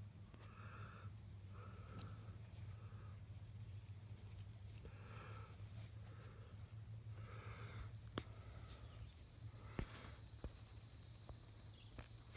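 Soft scraping of fingers in dry dirt, in patches, with a few sharp clicks in the second half as stone and roots are handled. A steady high-pitched insect drone runs underneath.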